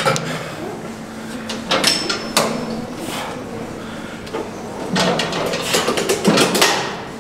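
Pulldown machine sliding and knocking during reps: a few separate knocks in the first three seconds, then a busier run of scraping and knocks about five seconds in, over a steady low hum.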